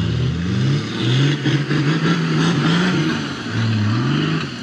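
Engine of a bogged four-wheel drive revving hard, its pitch rising and falling again and again, as it is towed out of soft beach sand with its wheels spinning. Near the end the revs drop away.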